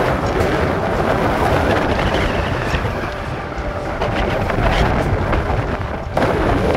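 Strong wind buffeting the microphone with a low, uneven rumble, while boots crunch on a stony path.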